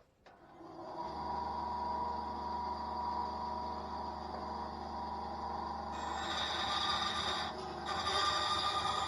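An electric power tool motor starts up and runs steadily with a hum and a whine. It gets louder and higher about six seconds in, with a short dip near the end.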